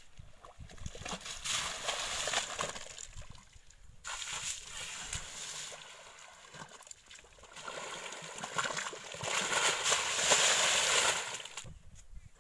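Muddy water sloshing and splashing as an African elephant wades in a shallow waterhole pool. It comes in uneven swells and is loudest about ten seconds in.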